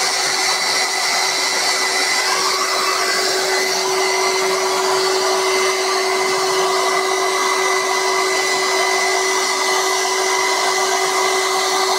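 An electric power-tool motor running steadily, an even airy whir with a constant hum, the same throughout.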